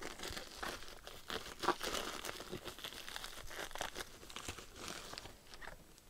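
A plastic shipping mailer being ripped open and handled, with irregular crinkling and rustling that thins out near the end.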